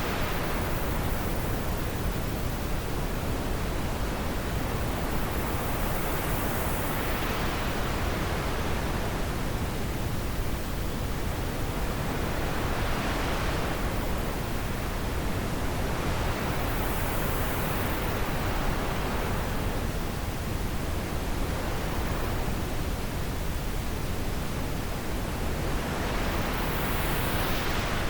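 Steady wind noise, an even rush with slow swells that brighten and fade every several seconds.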